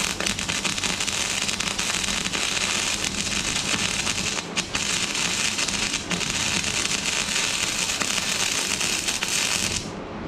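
Titanium 125 flux-core wire-feed welder arc crackling steadily as a bead is run on the steel deck of a rotary cutter, with two brief breaks about four and a half and six seconds in. The arc cuts off shortly before the end.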